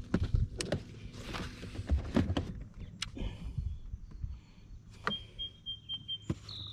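Irregular knocks, clicks and rattles of gear being handled in a bass boat, over a steady low hum. About two-thirds of the way in, a string of about five short high beeps, then a higher tone near the end.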